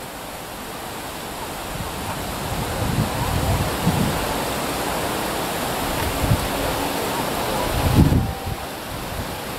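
Wind buffeting the microphone in low thumps over a steady rushing hiss that slowly grows louder.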